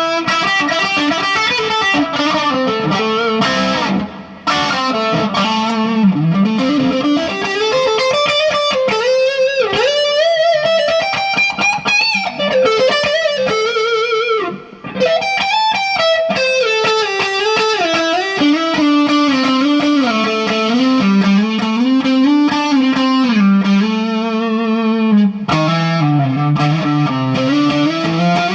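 Gibson Les Paul electric guitar played through an amp: a singing melodic lead line with string bends and vibrato, pausing briefly about four seconds in and again near the middle.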